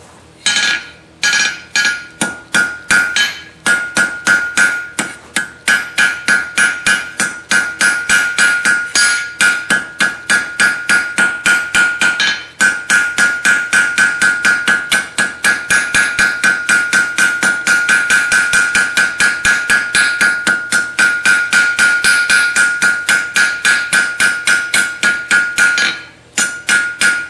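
Hand hammer striking hot 3/8-inch round steel bar on an anvil at about four blows a second, each blow ringing the anvil with a clear high tone, while the bar's end is drawn out to a point. The hammering pauses briefly about twelve seconds in and again near the end.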